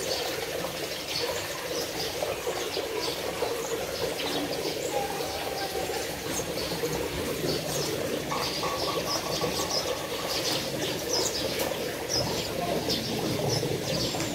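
Small birds chirping over and over over a steady background hiss.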